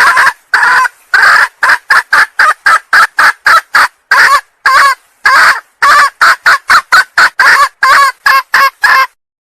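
Red junglefowl hen calling: a drawn-out call, then a rapid run of short, loud clucks about three a second that stops abruptly near the end. This is the hen's call used to lure junglefowl cocks.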